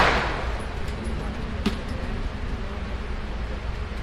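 Steady gun-range background noise, with the tail of a loud burst of noise fading out at the start and one sharp click about a second and a half in.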